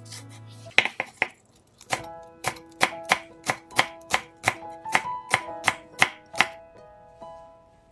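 Chef's knife slicing green onions on a wooden cutting board. There are a few quick cuts about a second in, then a steady run of about three cuts a second, each knocking on the board, which stops near the end.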